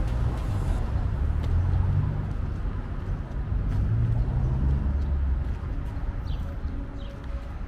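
Road traffic on a city street: cars going by, a low rumble that swells twice.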